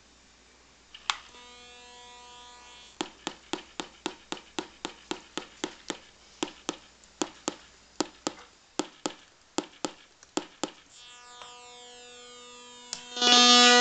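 Electronic sound effect through a small speaker: a series of sharp clicks, each with a short buzzy ringing tone, about two or three a second. Near the end a steady buzzy tone comes in and then jumps suddenly louder.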